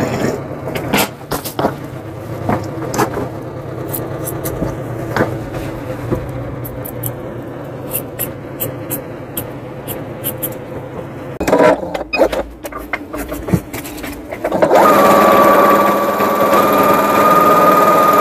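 Scissors snipping and a rotary cutter working through cotton fabric, many short crisp clicks over a steady low hum. About fifteen seconds in, a Singer Heavy Duty sewing machine starts stitching with a loud, steady whir that steps slightly in pitch.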